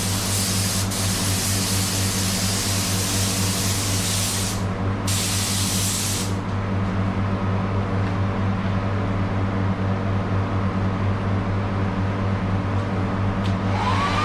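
Paint spray gun hissing in a long pass, a short break about four and a half seconds in, then a brief final burst that stops about six seconds in. A motor hums steadily underneath.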